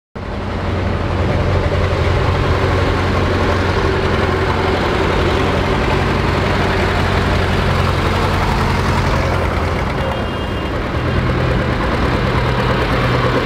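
Engines of vintage tractors running steadily as they drive past in a slow procession, with a second, different engine note taking over about ten seconds in.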